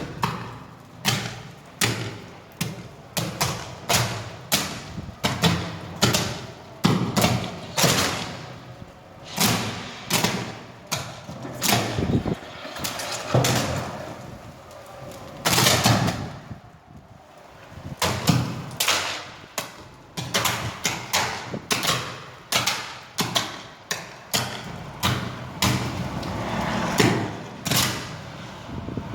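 Repeated sharp bangs of electric arcing from 220 V mains, coming irregularly about one to two times a second, each dying away quickly.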